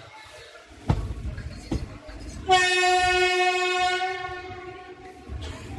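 WAP-4 electric locomotive's horn sounding one steady note for about two seconds, starting midway and tailing off, over the low rumble of the moving train. A sharp knock comes about a second in as the rumble swells.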